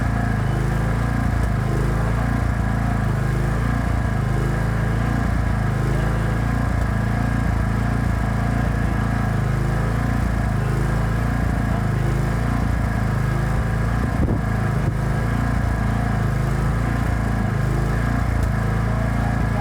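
Engine-driven welding generator running steadily: a low, even hum with a regular waver about once a second.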